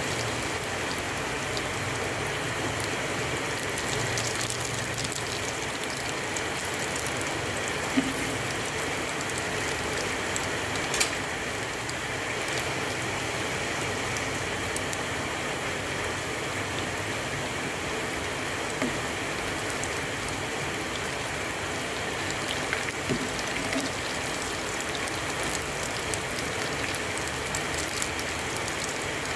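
Hot oil sizzling steadily around eggless potato perkedel (potato fritters) deep-frying in a wok. A few sharp clicks of the spatula against the pan come as the patties are turned, the loudest about 8 and 11 seconds in.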